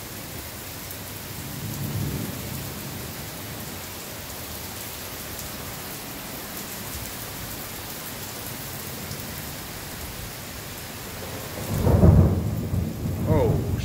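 Heavy rain pouring down steadily, with a low rumble of thunder about two seconds in and a louder, longer rumble of thunder near the end.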